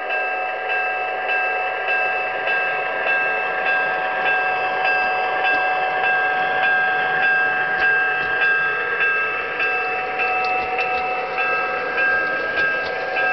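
MTH RailKing Burlington Zephyr O-gauge model train running past, its Proto-Sound diesel engine sound playing as a steady hum of several held tones. Sharp clicks from the wheels on the rails grow more distinct near the end as the last car goes by.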